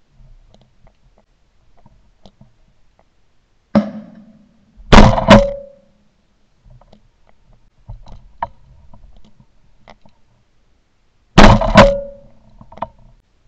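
Shotgun firing: a fainter bang about four seconds in, then two very loud blasts in quick succession a second later, and another quick pair near the end, each pair followed by a brief ringing tone.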